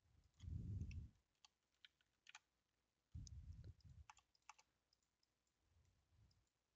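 Faint computer keyboard and mouse clicks, a scatter of light separate clicks. Two soft low rumbles come about half a second in and again about three seconds in.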